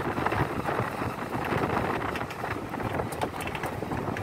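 Ride noise of an open-sided electric shuttle cart on the move: a steady rush of wind on the microphone over tyre rumble, with a few light clicks from about three seconds in.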